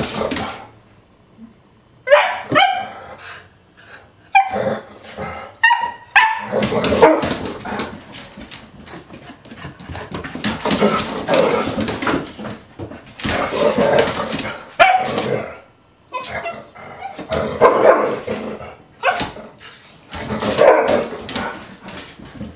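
Dogs at rough play, a Huskita puppy among them, barking and giving short high yips. A quick run of yips comes a couple of seconds in, followed by longer, rougher bouts of barking and scuffling.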